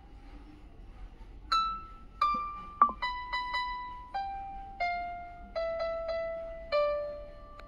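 Background music: a slow melody of single piano-like notes, each struck and left to ring out and fade, starting about a second and a half in.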